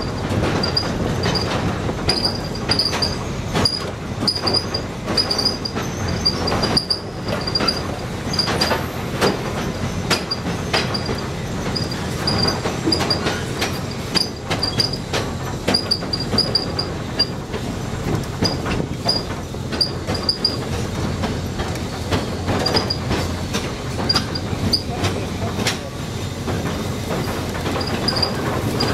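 Ride noise of a moving passenger train car: a steady rumble with frequent clicks and knocks from the wheels on the rails, and short high-pitched squeaks repeating throughout.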